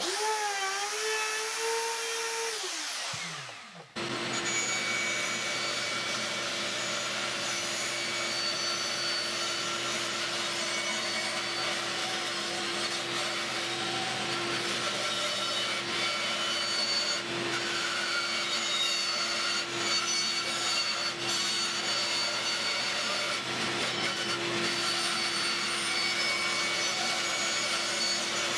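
A handheld plunge router's whine winds down and stops about three seconds in. From about four seconds a band saw runs steadily, cutting a thick elm headboard blank along its curved line.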